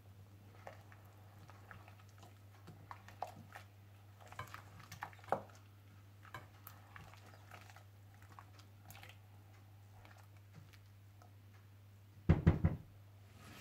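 Silicone spatula stirring and knocking against a stainless steel saucepan of beef pieces in water: scattered light clicks, then a quick cluster of louder knocks near the end, over a steady low hum.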